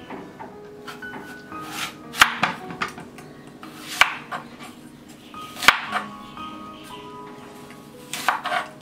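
Serrated knife cutting an apple on a wooden cutting board: four sharp knocks of the blade hitting the board, roughly two seconds apart, with lighter scrapes and taps between, over soft background music.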